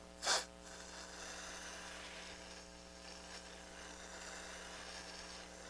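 A single short hiss of zero-residue aerosol contact cleaner spraying, about a third of a second long, over a faint steady mains hum.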